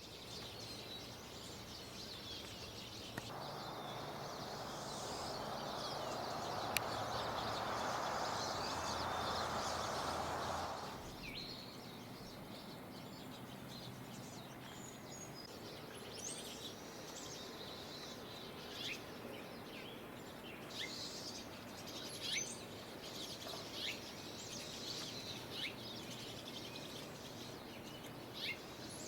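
Small wild birds chirping and calling, short high notes scattered throughout. From about three seconds in until about eleven seconds, a louder steady rushing noise with a low hum sits underneath, then stops.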